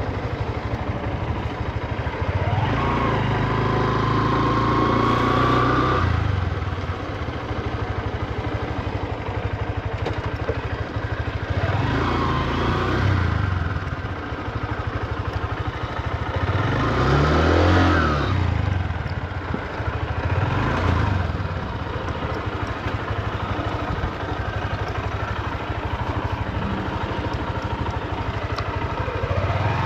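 Honda CB125F single-cylinder engine under way: it picks up and eases off several times, with a clear rising pitch as it pulls, kept at low revs while the new engine is broken in.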